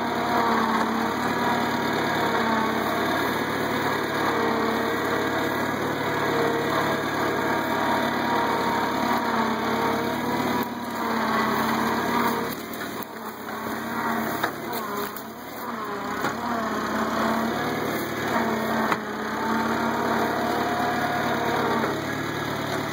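International Cub tractor's small four-cylinder flathead engine running steadily while pulling its cultivators through the soil. It falls quieter for a few seconds about halfway through, then picks up again.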